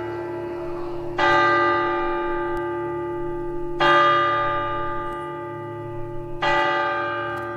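A single church bell tolling slowly, struck three times about two and a half seconds apart. Each stroke rings on and fades before the next.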